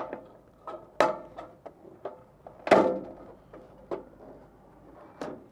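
Sheet-metal wall flashing being handled and pressed into place on a metal roof: a series of sharp metal knocks and clanks with a brief ring, the loudest about a second in and again near the three-second mark.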